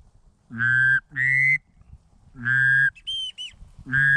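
Hunter's duck calls blown at incoming ducks: four loud, flat-pitched quacks on a reed call, two close together about a second in, another at two and a half seconds and one at the end, with a pair of short high whistles like a wigeon or pintail whistle just after three seconds.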